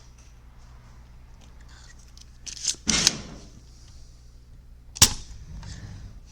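Sharp clicks and knocks of tools working a capacitor loose from a circuit board during desoldering: a cluster of hard clicks just under three seconds in and a single sharp snap about five seconds in, over a low steady hum.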